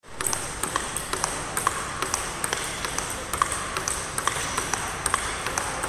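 Table tennis rally: the ball clicking off rubber paddles and the table in a quick, regular run of sharp pocks, about three to four a second, often in close pairs of bounce and hit, over a steady background hiss.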